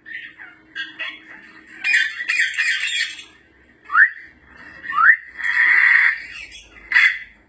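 African grey parrot calls: harsh, noisy squawks with two short rising whistles between them and a brief call near the end.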